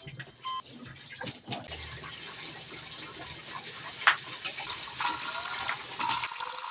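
Water running from a hose into a washing machine tub as it fills, with scattered clicks and one sharp knock about four seconds in.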